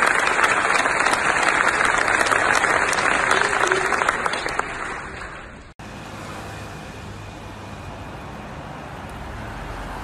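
Large audience applauding, fading and then cutting off abruptly about six seconds in. It is followed by quieter street ambience with a low traffic rumble.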